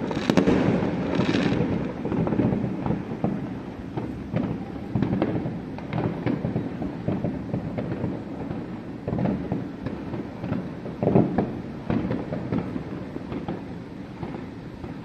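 Aerial fireworks bursting and crackling in quick succession, many bangs overlapping. The bursts are densest at the start and again about eleven seconds in, then thin out toward the end.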